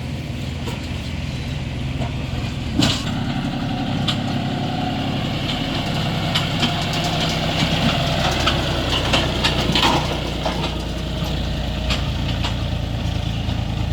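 John Deere tractor's diesel engine running steadily. A sharp knock comes about three seconds in, and scattered clicks and knocks follow through the middle of the stretch.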